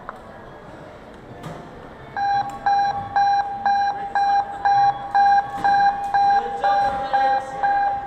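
Electronic alarm beeping in an even, single-pitched pulse, about two beeps a second, starting about two seconds in and continuing.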